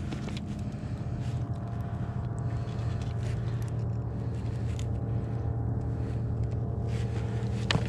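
Steady low hum of a boat motor running at an even speed, with faint clicks and scrapes scattered through it.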